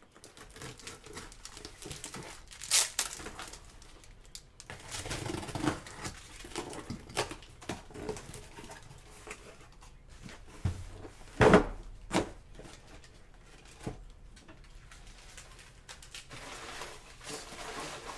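A cardboard shipping case of trading-card boxes being handled and opened: cardboard rustling and scraping, broken by short knocks and clicks, the loudest knock about eleven seconds in.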